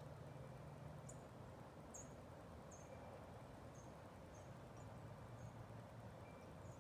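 Near silence: faint, short, high chirps of a small bird, irregular at roughly one a second, over a low steady hum.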